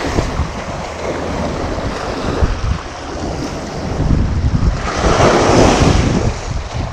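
Small waves washing over a rocky shoreline, with wind buffeting the microphone. One wash swells louder about five seconds in.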